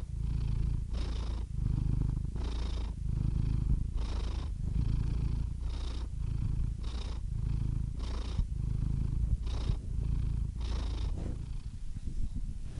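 Domestic cat purring close up: a continuous low rumble with a breathy hiss on each breath, about every second and a half, the breaths growing fainter near the end.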